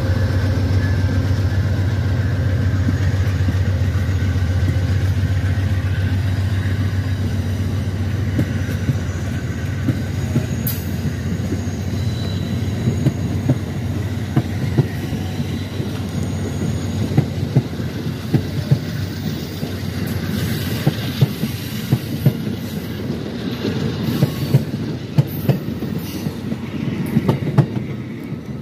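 Amtrak passenger train passing close by: the GE P42DC diesel locomotive's low drone fades in the first several seconds. The stainless-steel passenger cars then roll past with the clickety-clack of wheels over rail joints, the clicks coming sharper and more often near the end as the last cars go by.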